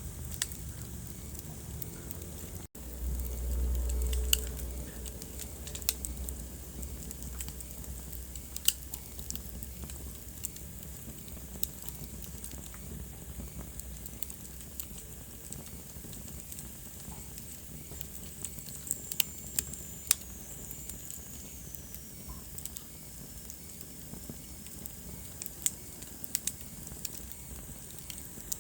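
Wood fire crackling in a fireplace, with sharp pops scattered throughout over a soft steady hiss. A low rumble swells for a couple of seconds near the start, and a thin high whistle falls in pitch around the middle.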